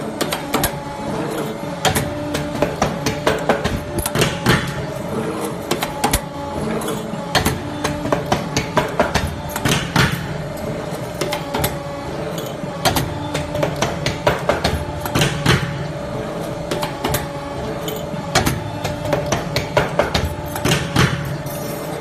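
Automatic wire-forming machine for bucket handles running: steel wire fed through the rollers and bent on the forming die, with rapid irregular metallic clicks and clacks over a steady machine hum.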